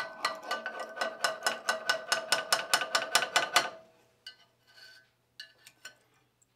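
Hammer tapping clamped mild-steel flat bar about five times a second for a few seconds, each light blow ringing the steel, to knock the parts into line before tack welding; a few faint clinks follow.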